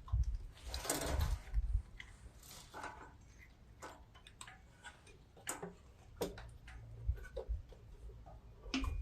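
Scattered light clicks and taps of hand tools and small metal parts as the carburetor's choke and throttle linkage is worked loose. There is a short scraping rustle about a second in.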